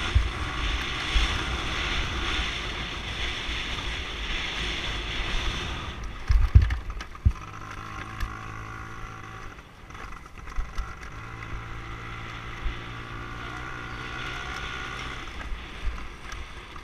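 Dirt bike engine running at a steady speed while it is ridden, with wind buffeting the microphone. The engine note changes about six seconds in, with a few low thumps.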